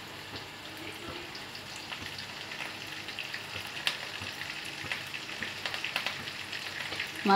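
Minced-meat kofta balls frying in hot oil in a pan: a steady sizzle with many small crackles and pops as they brown.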